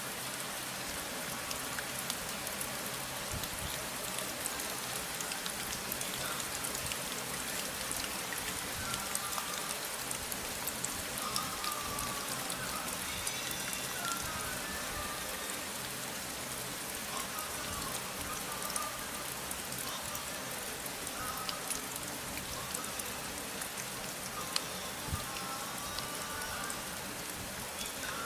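Steady rain falling, a dense even hiss with the patter of individual drops. A few faint wavering tones rise above it around the middle and again near the end.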